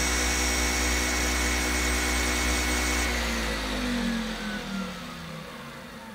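Car alternator converted to a star-wired brushless motor running at full power, about 4500 rpm, with a steady high whine. About three seconds in it begins to coast down: its whine falls steadily in pitch and fades.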